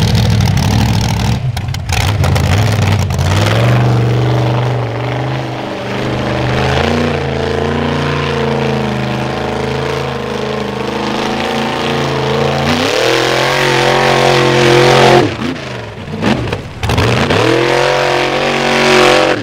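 Formula Offroad buggy engine revving hard, climbing in pitch and held at high revs with small surges as the throttle is worked. Near the end the revs drop sharply twice and pick up again, then cut off.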